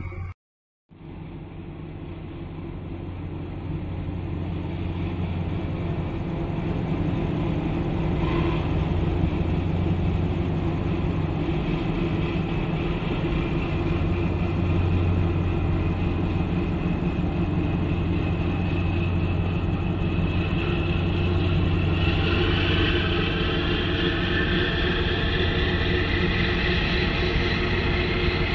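Large container ship passing close by, its engines and machinery giving a steady low hum with several stacked tones. The hum starts suddenly after a moment of silence and grows louder over the first few seconds. About two-thirds of the way through, a steady hiss joins it.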